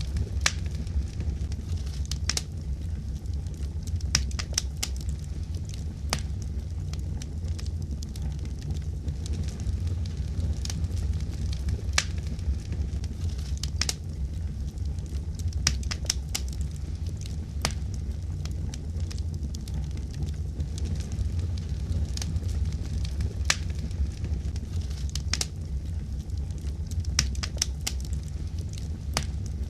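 Fireplace fire burning, a steady low rumble with irregular sharp crackles and pops scattered throughout.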